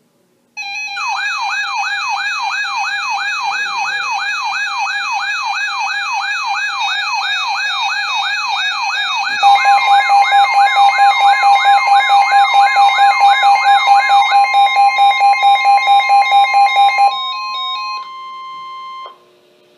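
Emergency weather alert tones before a NOAA Weather Radio flash flood warning: an electronic siren-like tone warbling up and down about three times a second over a steady beep, joined about halfway by a louder pulsing steady tone. Near the end only a steady tone remains, and it then cuts off.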